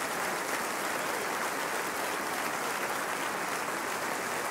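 Steady applause, a dense even patter of many hands clapping.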